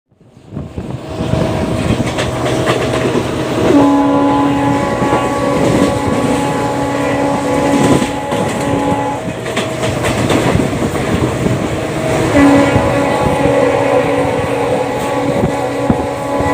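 WDP4B diesel locomotive's multi-tone air horn sounding two long blasts, about four seconds in and again near the end, as a passenger train of ICF coaches runs past at speed, its wheels clacking over the rail joints. The train noise comes up from silence over the first second and then stays steady and loud.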